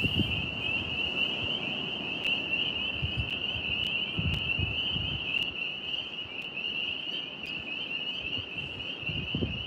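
A chorus of tree frogs trilling steadily and continuously, with wind gusting on the microphone underneath.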